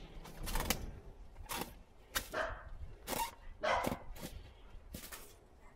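A German shepherd-type dog playing with an inflated rubber balloon, nosing and knocking it around: a series of short, sharp sounds about every half second to a second.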